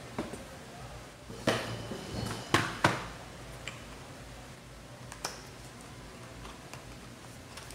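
Unboxing handling: a small accessory box being opened, with three sharp knocks and clicks of cardboard and packaging in the first few seconds and a fainter one later.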